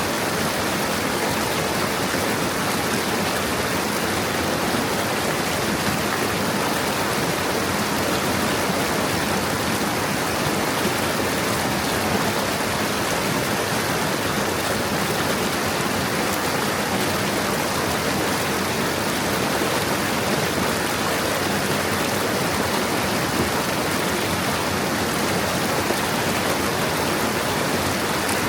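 Shallow stream babbling steadily over stones, an even rush of water.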